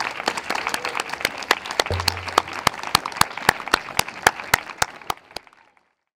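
Audience applauding after a speech. The clapping thins out and dies away about five and a half seconds in.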